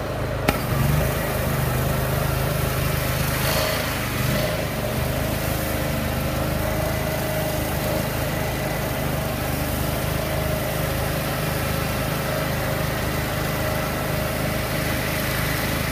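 18 hp Honda engine running steadily and driving an 8 GPM, 2800 psi pump, with the hiss of the hose nozzle spraying that starts suddenly about half a second in and carries on.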